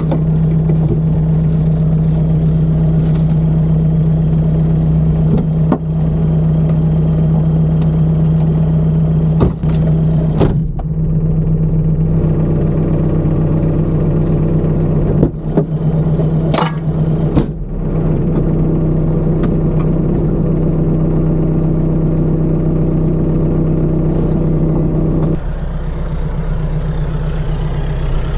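Toyota Land Cruiser off-road race car's engine idling steadily, heard inside the cabin, with a few knocks and clicks about ten seconds in and again around fifteen to seventeen seconds. Near the end the sound shifts and a steady hiss comes in over the engine.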